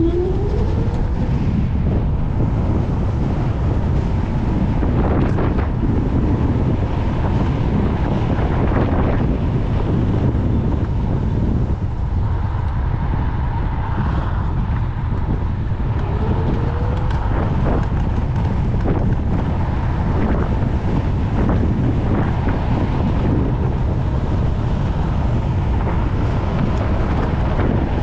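Wind buffeting the microphone of a rider on a Segway GT2 electric scooter, a steady low rumble with a few faint rising whines.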